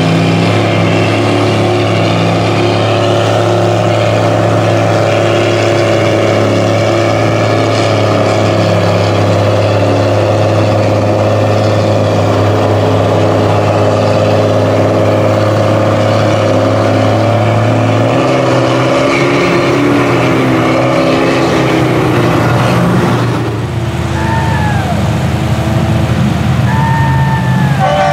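Big lifted mud trucks' engines running hard as they drive through deep mud on oversized tires. The engine note is a steady drone that changes about two-thirds through and again a few seconds later. Several short whines rise and fall near the end.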